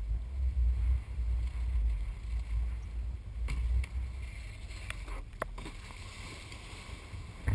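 Wind buffeting the microphone at water level, a rising and falling low rumble over faint water lapping, growing quieter toward the end, with a few light knocks about halfway through.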